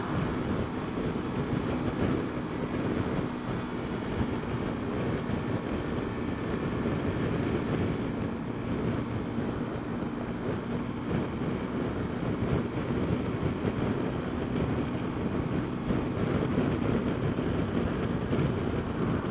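Steady wind rush on the microphone with the even running drone of a Honda Dio scooter's engine and road noise at a constant cruising speed.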